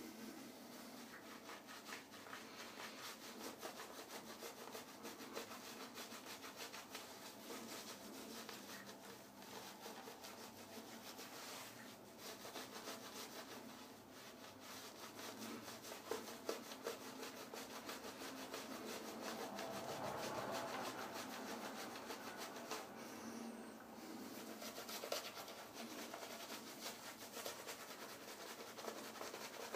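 Shaving brush face-lathering: a steady soft rubbing of the bristles working shaving-soap lather over the cheek and stubble.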